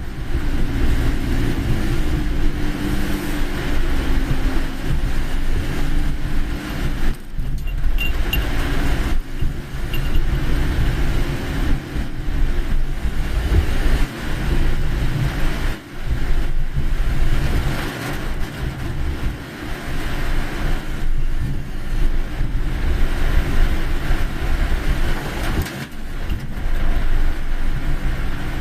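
Car driving on a rain-soaked road in heavy typhoon rain: a steady low engine and road rumble under a hiss of rain and wet tyres, with a few short dips in level.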